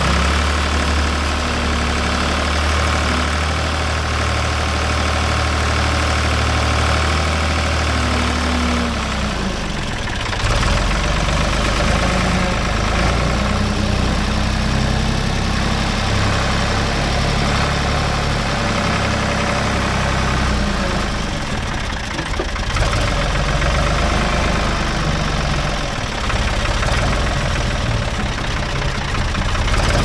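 Engine of an old backhoe running continuously under load as its front loader bucket pushes brush and dirt, the engine note shifting about ten seconds in and varying with load after that.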